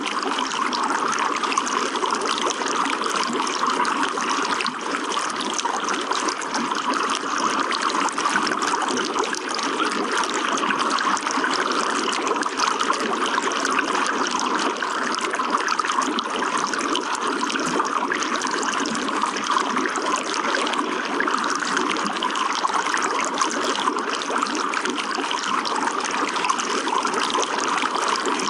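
Running water trickling and splashing in a steady, unbroken stream.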